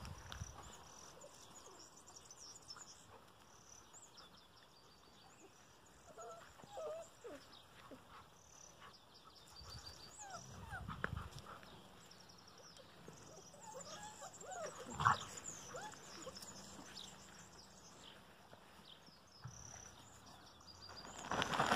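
Puppies playing, giving scattered short whines and yips. The loudest is a sharp yelp about two thirds of the way through.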